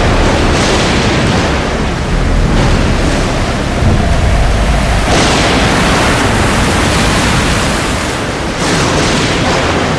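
Storm at sea: a loud, continuous roar of heavy breaking waves and wind with a deep rumble, heaviest about four seconds in.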